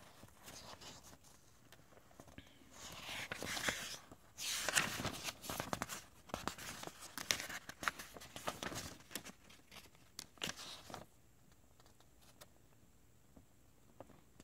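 A paper instruction manual being handled and its pages turned: crinkly paper rustling that comes and goes for several seconds, then stops.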